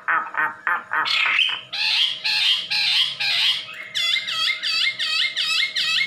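A wambi songbird calling: a quick string of short notes, then loud harsh calls, then from about four seconds in a fast run of repeated whistled notes, about four a second.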